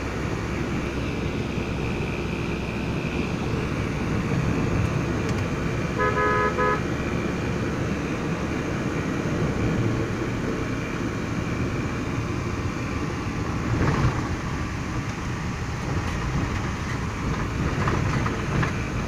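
Steady engine and road noise heard inside a moving car, with a short vehicle horn toot about six seconds in and a brief knock near the end.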